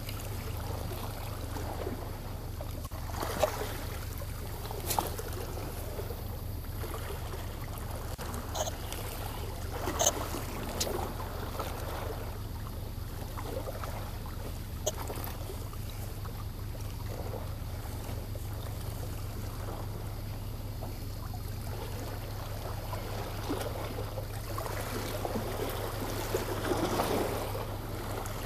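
Seawater lapping and trickling against shore rocks, with a wash of water swelling near the end. Under it runs a steady low hum, and a few sharp clicks stand out.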